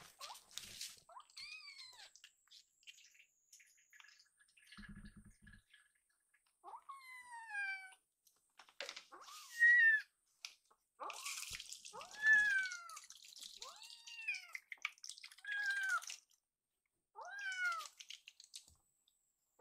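Young kittens meowing again and again, about ten high thin calls that each rise and then fall in pitch. They are begging for more milk.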